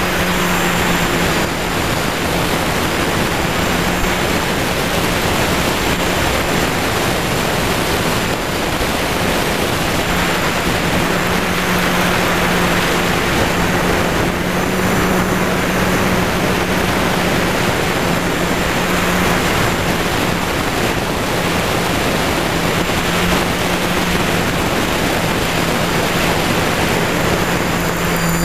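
Multirotor copter's electric motors and propellers humming steadily in flight, under heavy wind noise on the onboard microphone.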